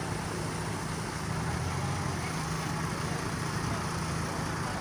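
Bus engine idling steadily, a constant low hum.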